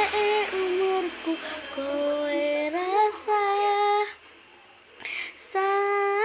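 A female voice singing unaccompanied, sliding between sustained notes. About four seconds in it breaks off for a breath, then holds one long steady note near the end.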